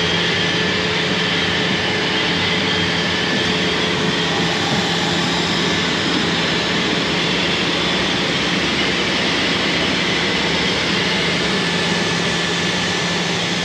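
Steady rushing of ventilation blower machinery, with a constant low hum and a few faint high steady tones under it.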